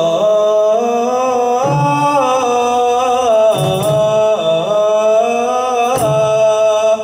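Boys' nasyid group singing together into microphones, a cappella, in long held notes that step up and down.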